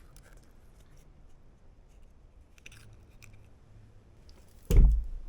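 Faint clicks of kitchen handling, then one loud knock near the end.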